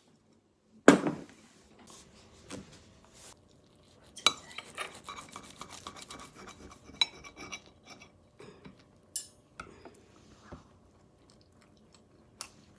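A ceramic plate set down on a table with one loud knock about a second in, then a knife and fork sawing through toasted bread, scraping and clinking against the plate.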